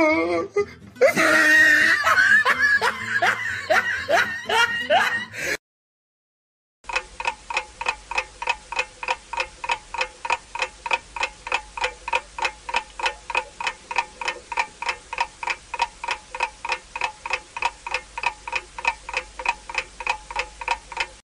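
Laughing for the first few seconds. After a brief dropout, a steady edited-in ticking like a clock or countdown timer, about three to four even ticks a second, each tick with a short pitched ring.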